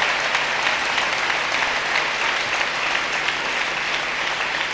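Large seated audience applauding: dense, steady clapping from many hands, easing off slightly near the end.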